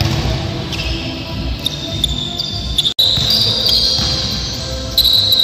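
Indoor basketball game: sneakers squeaking on the court floor and the ball bouncing. The sound drops out for an instant about halfway, and the squeaks are louder after it.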